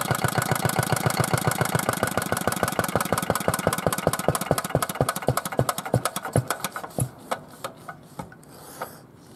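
Yanmar single-cylinder stationary diesel engine being shut down: its regular firing beats slow and space out as it runs down, with a few last widely spaced puffs before it stops about eight seconds in. A short hiss follows near the end.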